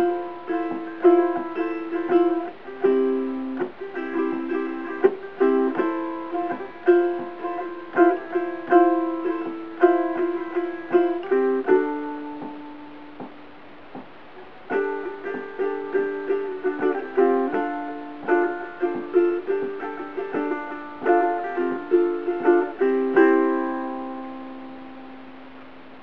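Covered Bridge redwood and myrtle tenor ukulele strumming rhythmic chords in a classic rock style. About halfway through, a chord is left to ring out and fade before the playing picks up again, and it ends on a chord ringing out over the last few seconds.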